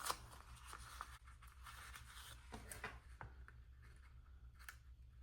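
Faint taps and light rustles of paper stickers being peeled and pressed onto a planner page, a few soft clicks spread through, over a low steady hum.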